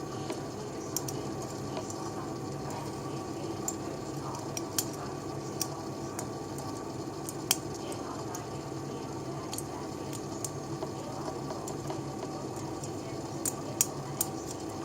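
Hook pick working the pins of a brass shutter padlock under tension: scattered faint metallic clicks and small scrapes, a few more near the end, over a steady background hum.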